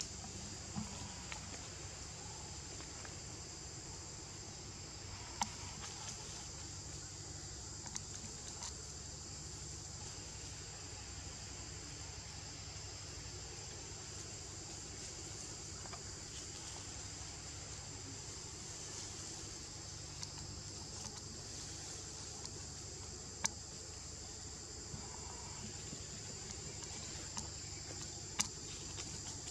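Steady insect chorus: a constant high-pitched shrill drone, with a few sharp isolated clicks, one around five seconds in and two in the last seven seconds.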